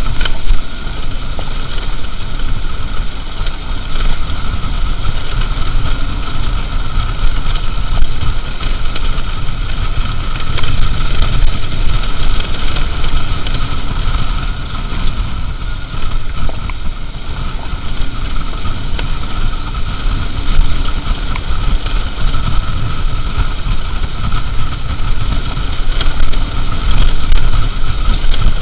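Motorcycle riding steadily along a gravel dirt track: engine and tyre noise under heavy wind buffeting on the camera microphone.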